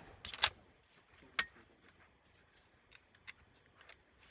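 Sharp clicks and snaps from laptop parts being handled during disassembly: a quick cluster in the first half second, a single loud click about a second later, then a few faint ticks.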